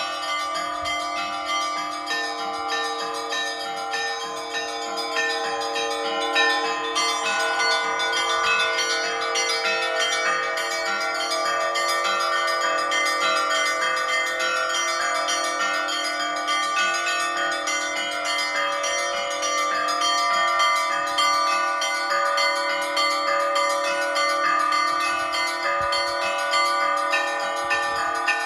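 Orthodox church bells rung in a continuous peal (zvon): many bells of different pitches struck in a quick, dense rhythm over the long ring of the deeper bells. The small high bells grow busier about seven seconds in.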